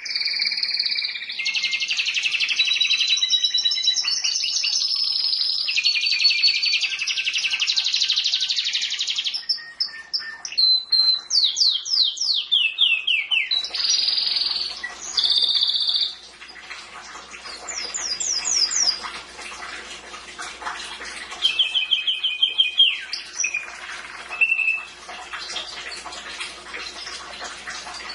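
Domestic canary singing: a long, fast run of rolling trills and rapid repeated notes, then from about halfway through shorter trills and single phrases with pauses over a faint hiss.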